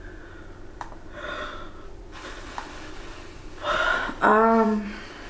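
A woman draws a sharp breath about four seconds in, then lets out a short voiced sigh that falls slightly in pitch: an emotional gasp and sigh after a sad story.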